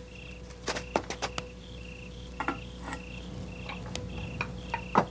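Crickets chirping in short chirps about twice a second, over a low steady hum. A few sharp clicks and knocks fall across it, the loudest near the end.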